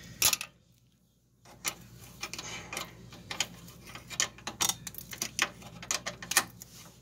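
A wrench working the brake line fitting on a front brake hose as it is tightened: a sharp click near the start, a brief gap, then a run of irregular metallic clicks and ticks, several a second.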